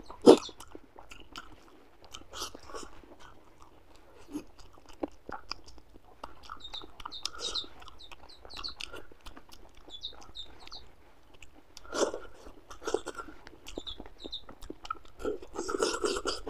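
Close-up eating sounds of a person eating rice and fish masala by hand: wet chewing and mouth sounds with scattered small clicks, the loudest a sharp click just after the start.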